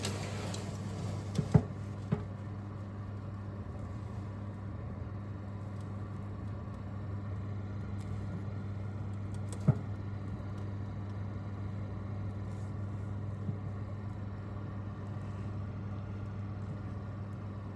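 Steady low electrical hum from a running kitchen appliance, with a few sharp clicks, the loudest about a second and a half in and another near ten seconds.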